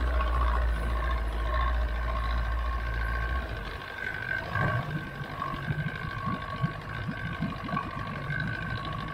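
Bass boat's outboard motor idling with a steady deep hum that cuts off about three and a half seconds in, after which water slaps and laps against the hull. A steady high-pitched whine runs throughout.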